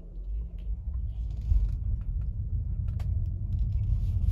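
Low road and tyre rumble heard inside the cabin of an electric Tesla Model Y as it pulls away from a standstill, growing slightly louder as it picks up speed; a couple of faint clicks.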